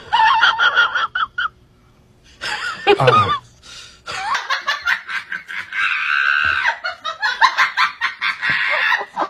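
People laughing, in several bouts with a brief lull about two seconds in, then laughing almost continuously through the second half.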